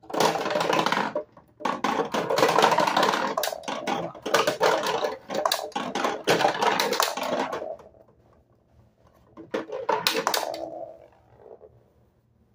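Plastic balls clattering and rolling down the chutes inside a toy ball-drop castle: a short rattle, then a longer run of about six seconds, and a last run that dies away near the end.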